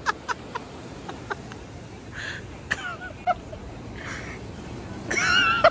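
Laughter in short bursts that fade over the first second or two, over a steady wash of breaking surf. A louder, high laugh or shriek comes near the end.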